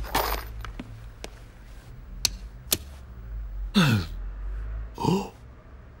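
Cartoon sound effects: several light metallic clicks of coins being handled, spread over the first few seconds. These are followed, about four and five seconds in, by two short sounds that fall steeply in pitch.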